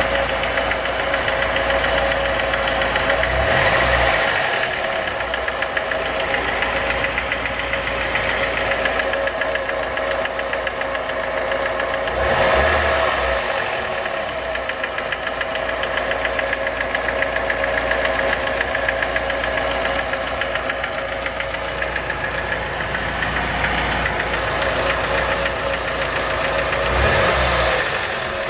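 Car engine running with a rapid, steady knock coming from inside the engine, the fault the owner is recording. The engine swells briefly three times: a few seconds in, near the middle and near the end.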